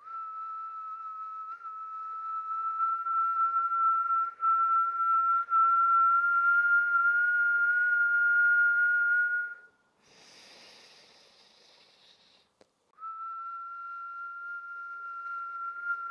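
A long, steady whistled exhale through pursed lips during a breathwork practice, held for nearly ten seconds and creeping slightly higher in pitch and louder before it drops away. A short hissing breath in follows, and near the end a second whistled exhale begins.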